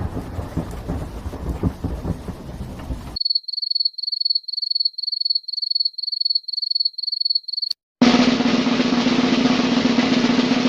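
A run of stock sound effects. First the tail of a rain-and-thunder rumble. Then a high electronic beep repeating about two to three times a second, stopping after about four seconds. About eight seconds in, a snare drum roll begins and keeps going.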